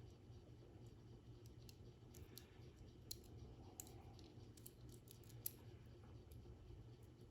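Faint, scattered light clicks over near silence: the metal links of a loose chainsaw chain clicking as it is handled and laid onto the bar.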